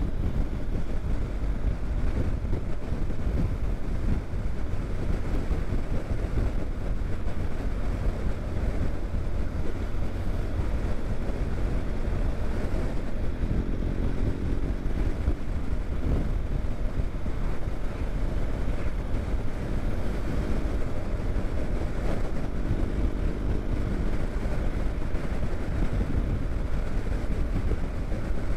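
BMW R1200 GSA boxer-twin motorcycle running at road speed, its low engine drone steady under the rush of wind over the microphone.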